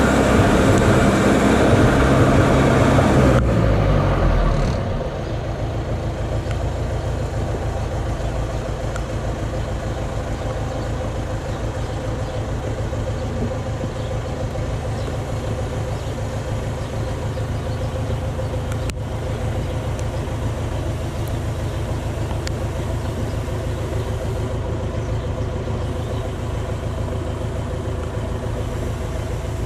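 Forklift engine running at raised revs, winding down in pitch about four seconds in, then a steady low engine idle.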